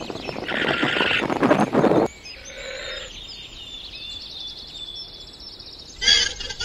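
Llama vocalizing: a loud, harsh call that cuts off after about two seconds. Then small birds chirp in the background, and near the end a rapid run of pulsed calls begins from a white llama.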